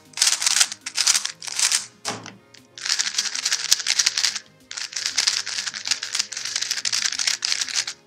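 Two plastic 3x3 speedcubes, a MoYu MF3RS and a GAN 356 Air SM, being turned fast by hand. Their layers make a rapid, dry clicking that comes in several bursts with short pauses, over soft background music.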